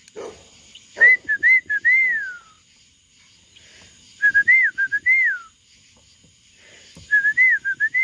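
A man whistling the same short phrase three times, each a few quick high notes ending in a longer falling note. It is his feeding call: his birds know the whistle means food is coming.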